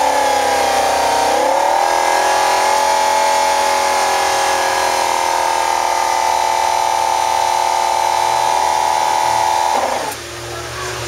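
Lamborghini LP570 Performante's V10 engine held at high revs for several seconds, a steady high-pitched engine note from the quad exhausts with a brief dip and climb about a second and a half in. Near the end the throttle is released and the revs drop suddenly back toward idle.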